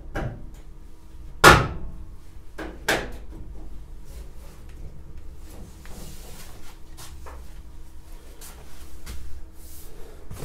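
A classic Mini's steel door being hung on its external hinges: a few hollow metal clunks and knocks, the loudest about a second and a half in and another a second and a half later, then lighter clicks and scrapes as the door is settled.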